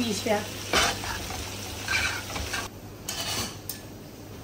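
Spaghetti sizzling in a hot aluminium sauté pan while metal tongs scrape and clink against the pan, a few sharp clatters in the first three seconds, over a steady low hum.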